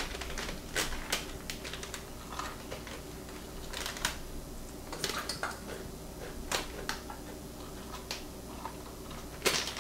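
Scattered light clicks and knocks of kitchen dishes and utensils being handled, a dozen or so at irregular intervals, over a steady low hum.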